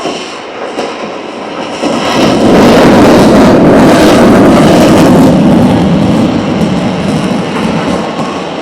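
An aircraft flying past, its loud engine noise swelling to a peak about three seconds in and then slowly fading.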